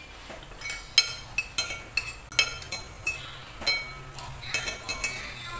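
Metal spoon and fork clinking against a ceramic plate as fried noodles are scooped up: a quick, irregular run of sharp, ringing clinks, starting about a second in.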